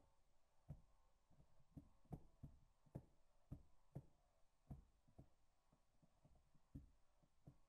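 Faint metal clicks and clunks from the gears of a partly disassembled Datsun 260Z four-speed manual transmission as its shaft is worked by hand, a string of irregular knocks about two a second.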